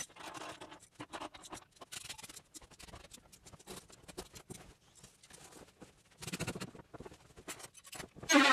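Fast-forwarded sound of plumbing work with hand tools on a floor: a rapid, faint jumble of small scratches, clicks and knocks. There is a louder garbled burst near the end.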